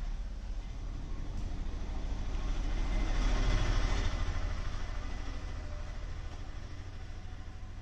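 Low rumble of a passing vehicle, swelling to its loudest about three and a half seconds in and then slowly fading.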